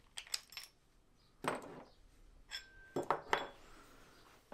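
Steel parts of a hydraulic brake-pipe flaring tool clinking and knocking as it is taken apart: the bracket and punch come off and the die is handled. The clinks are light and separate, several over a few seconds.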